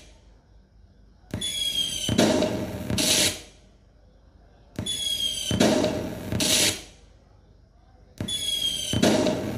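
Electric LED firework light playing its firework sound effect through its built-in speaker: a short rising whistle, then about two seconds of crackling bangs. The cycle repeats three times, roughly every three and a half seconds, with a brief quiet gap between.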